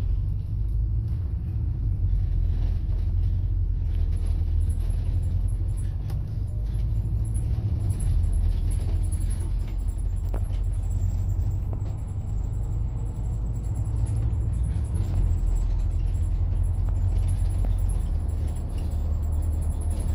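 A moving bus's engine and road noise heard on board: a steady low rumble that rises and falls slightly as the bus drives.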